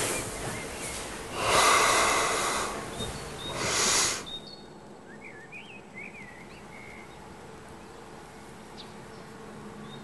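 A person's heavy, rasping breaths: a long one, then a shorter one. Then quiet with a few faint bird chirps.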